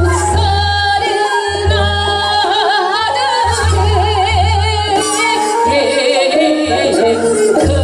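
A woman singing Seodo sori, Korean folk song of the northwestern provinces, into a microphone, her voice wavering with a wide vibrato and sliding ornaments. Underneath is an accompaniment with deep bass notes that recur about every second and a half.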